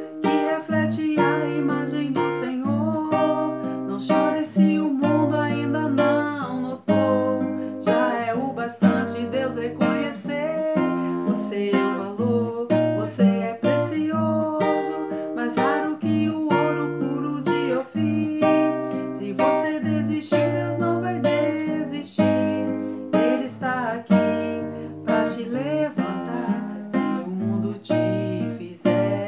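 Nylon-string classical acoustic guitar being played continuously, strummed and plucked chords in a steady rhythm.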